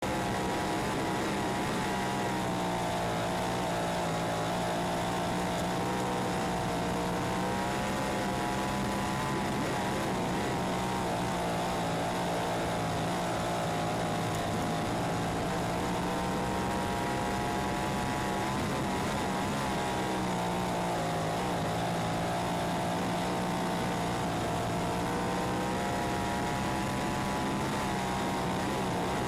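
358 sprint car's V8 engine at racing speed, heard from an onboard camera in the cockpit. Its pitch rises and falls every few seconds as the car speeds up and slows, over steady rushing noise.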